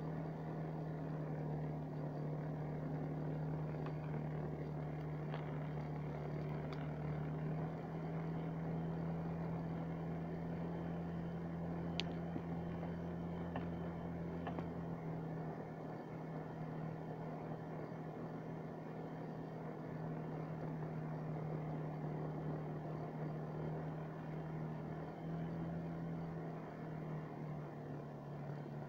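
A small motor vehicle's engine running at a steady cruising speed while travelling over snow: a constant low drone that shifts pitch slightly a couple of times.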